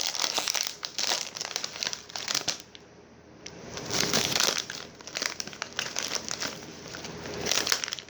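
A snack bag crinkling as it is handled, in irregular bursts with a short pause about three seconds in.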